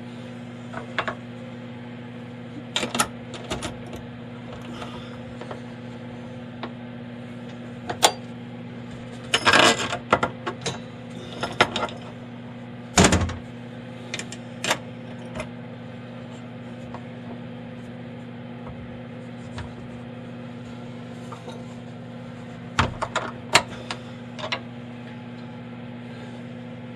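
Scattered metal clinks, clicks and knocks of clamps and hand tools as a workpiece is clamped down in a CNC router's fixture, with a short rattling stretch about ten seconds in and a heavier knock soon after. A steady electrical hum runs underneath.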